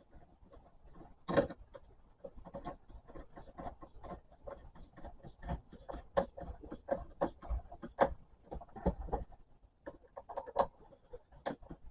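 Irregular small clicks and knocks of hands working a clamp and fittings onto a PVC pipe, with one louder knock about a second and a half in.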